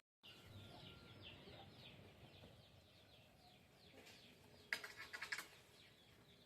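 Faint, rapid run of short high falling bird chirps, fading out after about three seconds, then a few quick sharp clicks about five seconds in; otherwise near silence.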